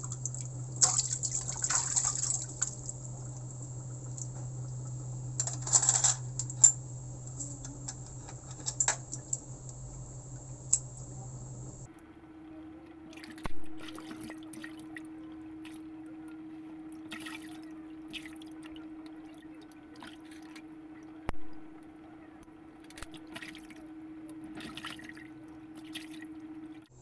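Hands squeezing and rubbing raw chicken gizzards in a bowl of water to wash them clean: irregular splashing and dripping, over a steady low hum.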